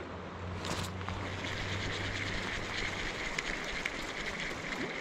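Steady rush of a fast river flowing over a shallow gravel riffle, with a short scratchy sound just under a second in.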